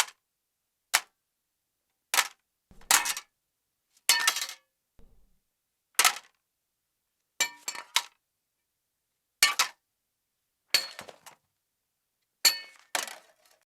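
A series of separate metal clanks and clangs, about ten in all, each a sharp hit with a short metallic ring. Several come as quick double or triple hits, like a dropped object bouncing.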